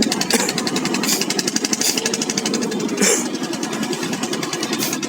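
Fishing boat's engine running steadily with a rapid, even knocking pulse, with a few short bursts of hiss over it.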